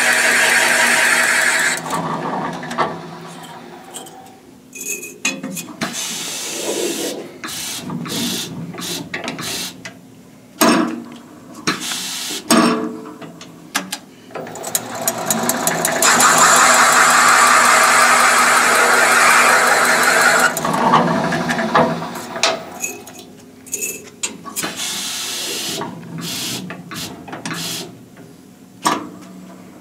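A 70-degree bowl hog cutter spinning in the VGS-20 machine, rough-cutting metal out of the intake valve bowls of a 454 big block Chevy cylinder head with a loud, steady cutting chatter. The cutting runs for about the first two seconds and again for about five seconds in the middle, with scattered knocks and clatter in between.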